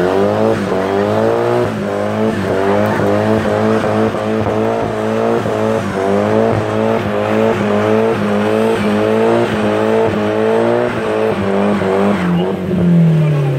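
Car doing a burnout: engine held at high revs while the rear tyres spin and squeal, with a repeating warble about twice a second. Near the end the revs fall away.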